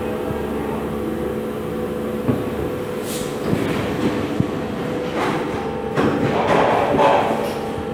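Variovac Rotarius VG rotary tray sealer running with a steady hum. From about three seconds in there are several bursts of hissing air and a few sharp clicks, the loudest hissing stretch coming near the end.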